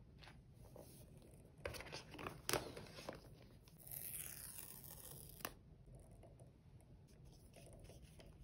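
Quiet cardboard and paper handling: a few crisp taps and rustles, then a drawn-out tearing about four seconds in as the pull-tab tear strip on the Apple Watch box is ripped open, followed by light paper rustling.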